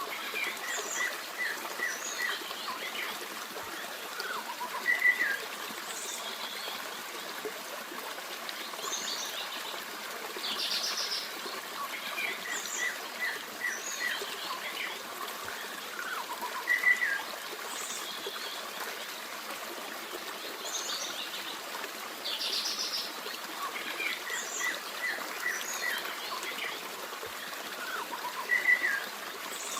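Forest stream running steadily, with several songbirds singing over it in short chirps, trills and runs of repeated notes. The same bird phrases come back about every twelve seconds.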